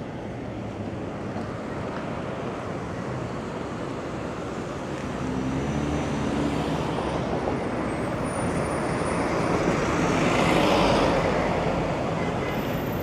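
City traffic noise, with a vehicle engine growing louder and passing close by, loudest about ten to eleven seconds in.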